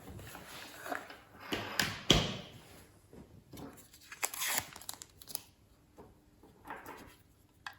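Scattered rustling and light clicks from handling a hearing-aid inductive charger and its power cable as it is plugged in.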